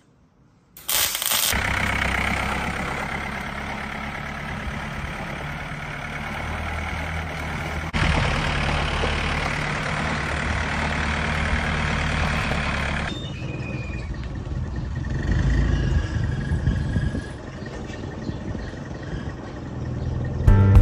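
Tractor engine running steadily on a John Deere fitted with steel-belted wheels, starting about a second in and heard through a few shots, with sudden changes in the sound at each cut.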